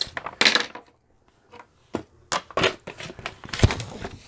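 A diamond painting canvas being handled and turned over, its surface rustling and crinkling in short spells, with a sharp click about two seconds in and a louder knock about three and a half seconds in.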